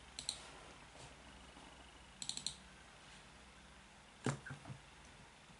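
Faint clicking at a computer: a quick pair of clicks at the start, a fast run of about four clicks a little past two seconds in, and a single louder click a little past four seconds.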